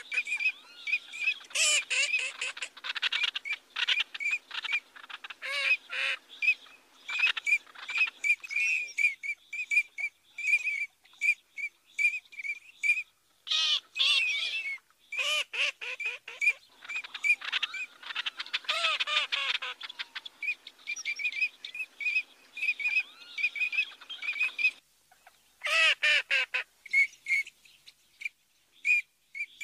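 Eurasian teal drakes calling: short, clear whistled 'krik' notes repeated about twice a second, with several bursts of denser overlapping calls from more than one bird.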